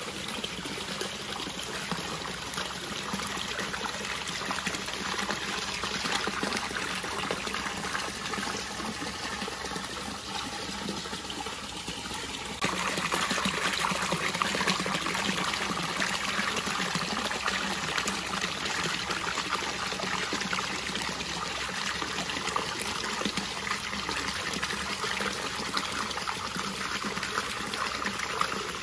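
Hot spring water pouring from a rock spout into an onsen bath, a steady splashing that gets louder about halfway through.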